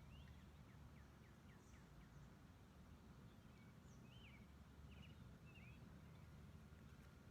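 Near silence outdoors: faint bird chirps, a quick run of short calls in the first couple of seconds and another a little past the middle, over a low steady rumble.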